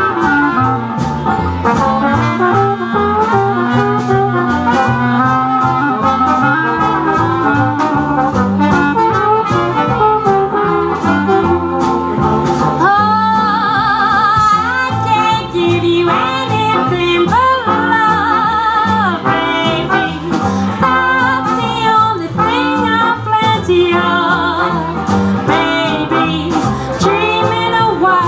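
Live swing jazz band: clarinet, trumpet and trombone over double bass and a steady beat. From about halfway, a woman sings long, wavering notes with vibrato over the band.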